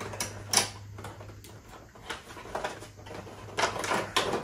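Cardboard and plastic packaging of a new game controller being handled and opened: scattered rustles and small clicks, with a cluster near the end, over a low steady hum.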